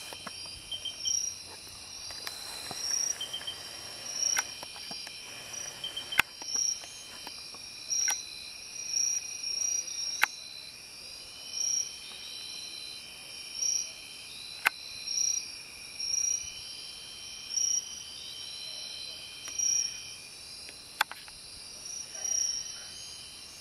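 Night insects chirping in a chorus, several kinds at once: short high chirps repeating about once a second over a steady trill, with a few sharp clicks scattered through.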